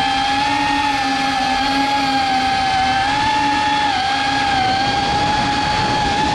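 Cinewhoop FPV drone's motors and ducted propellers whining steadily, the pitch wavering slightly with the throttle and dipping briefly about four seconds in.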